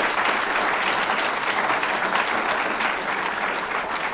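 Audience applauding: many hands clapping in a dense, steady patter that eases slightly near the end.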